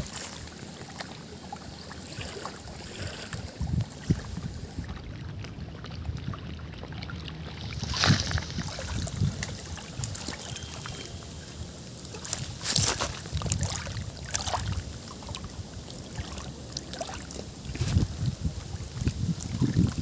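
Wind rumbling on the microphone, with small waves lapping at a rocky lake shore. A few sudden louder bursts stand out, the strongest about eight and thirteen seconds in.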